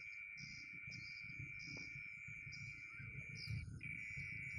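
Night insects calling. One steady, high-pitched trill breaks off for a moment about three and a half seconds in, under another insect calling in short pulses about twice a second.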